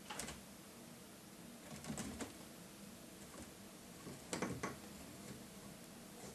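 A chinchilla scrambling and hopping over wooden and cork surfaces. Its claws and feet make faint clicks and scratchy knocks in three short clusters, the loudest about four seconds in.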